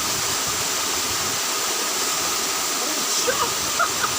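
Waterfall rushing with a steady, even roar, with a few brief faint chirps near the end.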